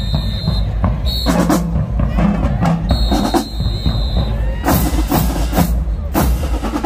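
Marching band drumline playing a cadence, with snare, tenor and bass drums and cymbal crashes. A shrill whistle sounds a few times over the drumming.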